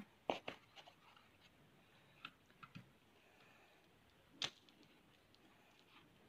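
Near silence with faint scattered clicks and rustles from hands pressing potting soil into a pot around a cutting; one sharper click a little past halfway.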